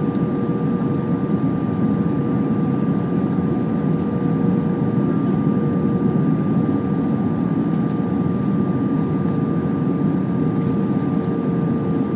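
Cabin noise of an Airbus A320 in flight, heard from a window seat over the wing: the steady rumble of jet engines and rushing air, with a constant whine over it.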